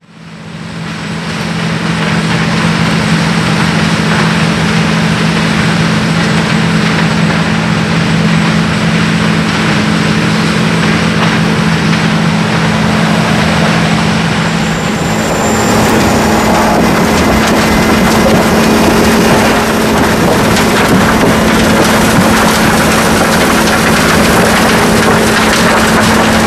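Caterpillar RM-500 rotary mixer's diesel engine running hard with a steady low drone, fading in over the first second or two. From about halfway through, a crackling grind joins in as the rotor chews up the asphalt road surface.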